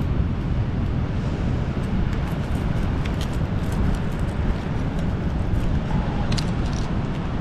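Steady low rumble of wind and surf at the shore. A few light clicks come from mussel shells being worked loose by hand and screwdriver, about three seconds in and again past six seconds.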